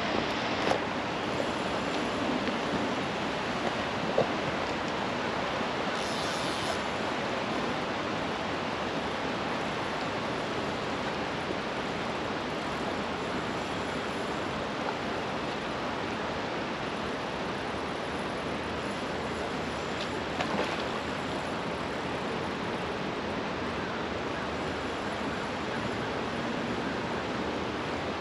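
River water rushing steadily over rocks, a constant even hiss, with a few small clicks about one, four and twenty seconds in.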